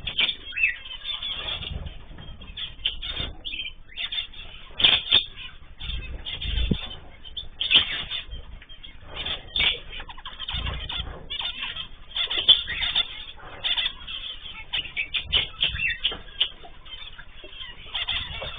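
Mixed cage birds, such as cockatiels, zebra finches and canaries, chirping and calling in many short, irregular calls that overlap throughout.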